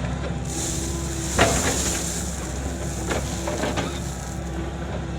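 Kobelco SK85 mid-size excavator's engine running steadily under load, with a few short knocks and scrapes from the bucket working gravel; the sharpest knock comes about a second and a half in.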